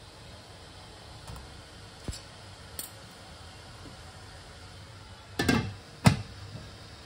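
A stainless steel plate clinks a few times as it is set down on a wire steaming rack in a wok. Then the domed wok lid goes on with a clatter and one sharp knock, the loudest sound. Under it all is the steady low hiss of the steaming water.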